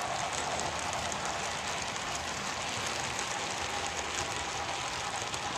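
HO-scale model freight train rolling along the layout track: a steady rumble of wheels on rails with a faint, even hum.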